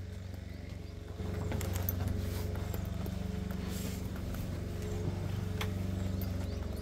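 Footsteps knocking on open wooden stair treads, heard over a steady low mechanical hum that grows louder about a second in.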